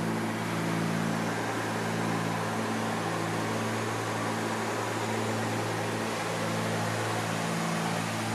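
Cabin noise of a Cessna 310Q twin in flight: the two piston engines and propellers drone steadily under a hiss of rushing air, the drone swelling and fading slightly every couple of seconds.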